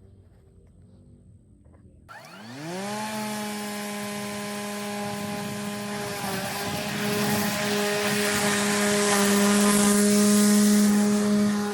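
EGO 56-volt electric lawnmower's motor and blade spinning up about two seconds in with a rising whine, then running at a steady high hum with the rush of the spinning blade, growing a little louder near the end.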